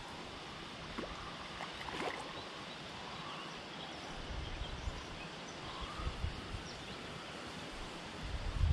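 Wind gusting on the microphone over a steady outdoor hiss, the low rumbling gusts coming in about halfway through and strongest near the end. A few light clicks about one and two seconds in.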